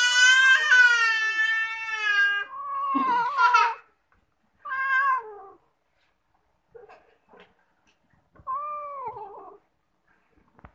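Domestic cat meowing four times: a long, loud drawn-out meow first, then three shorter meows, the last about nine seconds in.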